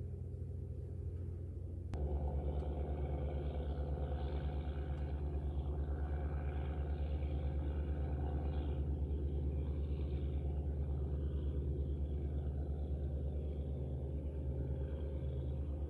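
Steady low throb of a squid-fishing boat's diesel engine heard across the water. About two seconds in it cuts with a click to a louder, steady engine throb.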